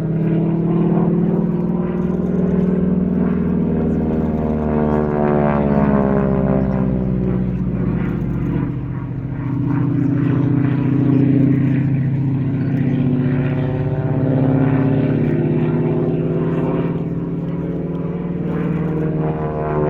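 North American Harvard IV's Pratt & Whitney R-1340 Wasp radial engine and propeller droning through a display. The pitch sweeps as the aircraft passes, once about halfway through and again near the end.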